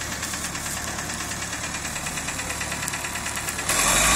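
Claas Dominator 56 combine harvester running, a steady diesel engine din with a fine even mechanical rhythm as it stands unloading grain through its auger into a truck. Near the end the sound jumps suddenly louder and harsher, with a rising tone.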